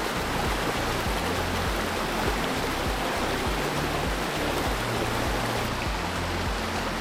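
Creek water rushing and splashing over rocks in a steady wash, with background music carrying a repeating bass beat underneath.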